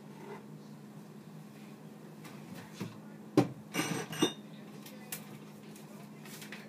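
Kitchen clatter: a handful of sharp clinks and knocks of dishware and utensils, bunched about three and a half to four seconds in, the first the loudest, over a steady low hum.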